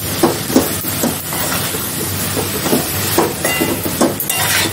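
Okra and ground coconut-onion masala paste sizzling in hot oil in a metal kadhai while a spoon stirs them, scraping and knocking against the pan several times.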